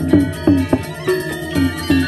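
Balinese gamelan bebarongan ensemble playing, bronze metallophones ringing. Sharp struck accents come about three times a second, several of them falling slightly in pitch.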